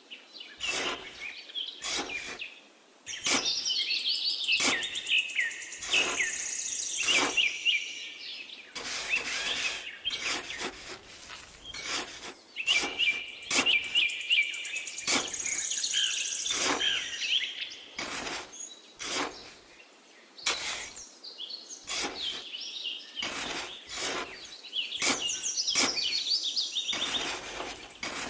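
A small trowel scraping and digging into damp sand, in repeated short strokes about once a second. Birds chirp and trill throughout.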